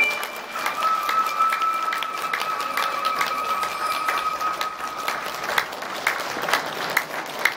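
Audience applauding at the close of a stage dance performance. A single steady high tone is held from early on and stops about five seconds in.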